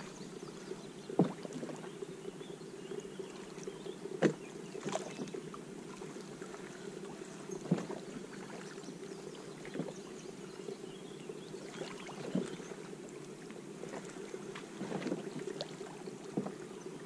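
Sounds of a fishing kayak on the water: a steady low wash with scattered light knocks and clicks, the sharpest about a second in.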